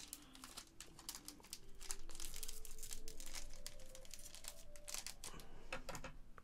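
Foil Pokémon booster pack wrappers crinkling as they are handled, a run of irregular crackles.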